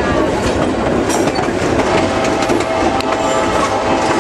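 Passenger train running along the track, heard from outside the car: a steady rumble of wheels on rail with many clicks from the rail joints, and a faint high whine joining in about halfway through.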